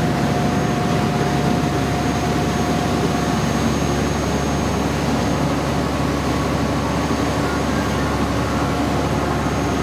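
Lobster boat's engine running steadily underway, mixed with the rush of the wake and wind. A constant low hum sits under the noise.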